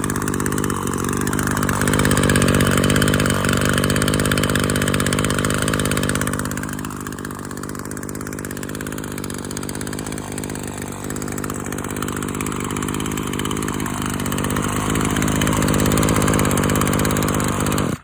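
Maruyama Big M KC26NX1's small engine running, picking up speed about two seconds in, easing back after about six seconds, and speeding up again near the end before cutting off suddenly.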